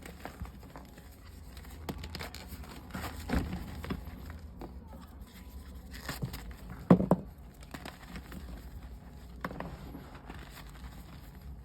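Pressed gym chalk slabs with a cornstarch filling being crushed and broken apart by hand: irregular crunching and crumbling, with the loudest crunch about seven seconds in.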